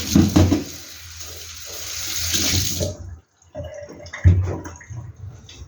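Kitchen tap running into the sink, turned off about three seconds in, followed by a few knocks.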